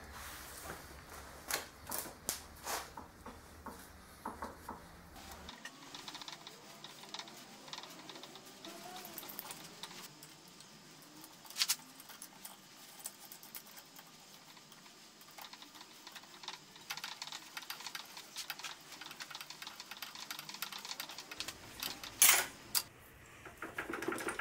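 Irregular metallic clicks and knocks as a screw puller is worked to draw a cast-iron drive pulley off a lathe spindle. A cluster of clicks comes in the first few seconds, one sharper knock comes about halfway, and two more come near the end.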